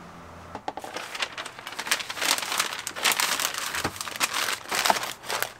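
Crinkling and rustling of wrapping material, butcher paper and a plastic bag handled in gloved hands as sliced smoked beef cheek is packed up. It starts about half a second in and runs as a dense run of sharp, irregular crackles.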